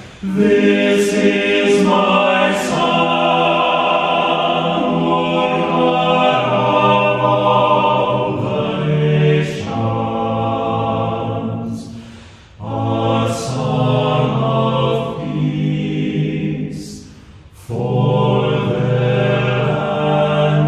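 A choir singing a slow piece in long held chords, with two brief pauses between phrases, about twelve and seventeen seconds in.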